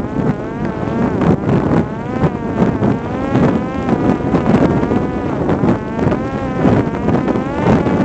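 Electric propeller motor of a Parrot Disco fixed-wing drone whining in flight, its pitch rising and falling over and over as the throttle and airspeed change, with strong wind buffeting the microphone.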